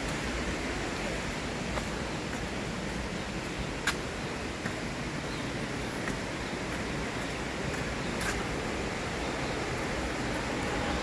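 Steady rushing of falling water from a waterfall, with a couple of sharp clicks, the loudest about four seconds in.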